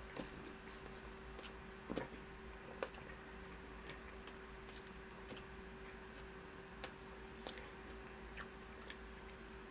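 Someone eating a sandwich fast: irregular soft chewing and biting sounds with scattered small clicks, the loudest about two seconds in, over a faint steady hum.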